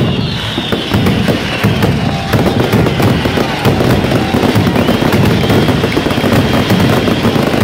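Daytime fireworks: a loud, dense, unbroken crackle of rapid bangs from crackling aerial stars and firecrackers, with no break.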